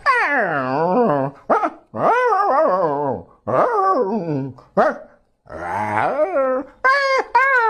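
A person mimicking dogs, trading whines and howls back and forth like a conversation: a string of pitched calls that glide up and down, in several short phrases with brief pauses between them.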